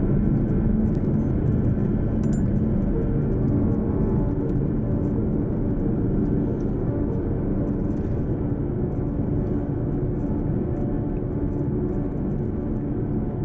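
Steady low rumble of a vehicle driving on a paved road, engine and tyre noise, easing slightly in loudness over the stretch.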